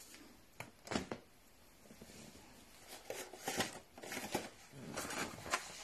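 Plastic packaging rustling and crinkling in the hands as items are taken out of their packets, in short irregular rustles that grow busier in the second half.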